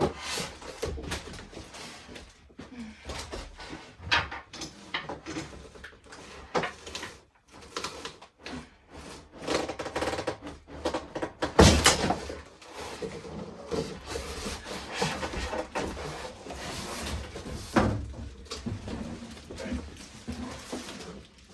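Packaging of a dehumidifier being opened and handled by hand: continual rustling and scraping with scattered knocks, the loudest about 12 s in and another near 18 s.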